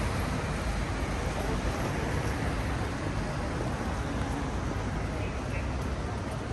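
Steady road traffic noise on a busy city street, a continuous low rumble with a hiss of sound over it and no single event standing out.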